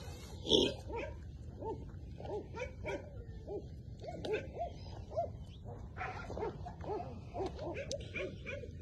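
A Belgian Malinois on a leash gives short, repeated whining yelps, a few a second, with one louder bark-like cry about half a second in.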